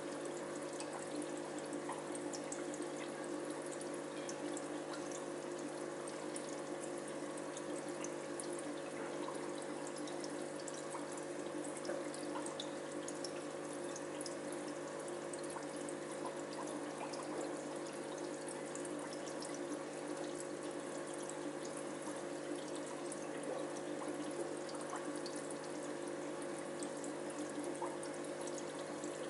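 Running aquarium with water circulating: a steady trickling, splashing water sound with faint scattered ticks, over a steady low hum.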